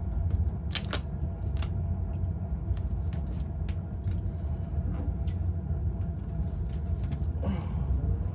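Home furnace blower fan running steadily with a low rumble, a scattering of short sharp clicks and taps over it.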